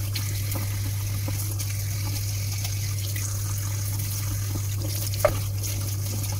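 Kitchen tap running in a steady stream into a metal sink as raw shrimp are rinsed under it. A steady low hum sits underneath, and there is one short sharp click a little over five seconds in.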